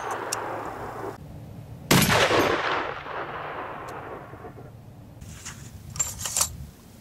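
Barrett M82A1 .50 BMG rifle firing one shot about two seconds in: a sharp, very loud crack followed by a long echo rolling away over the next couple of seconds. The echo of an earlier shot is still dying away at the start, and a few light clicks come near the end.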